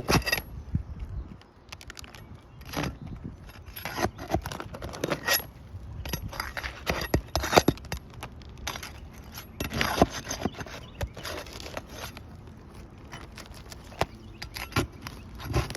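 Steel flat bar working under asphalt 3-tab shingles to pull the roofing nails, giving irregular sharp metallic clicks and short scrapes against the gritty shingles.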